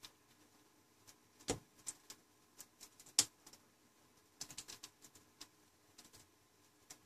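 A few faint clicks and light taps from a plastic pry blade working under the cracked front glass of a Samsung Galaxy Note II as the glass is lifted off the frame. Two sharper clicks come about a second and a half and three seconds in, then a short run of light taps.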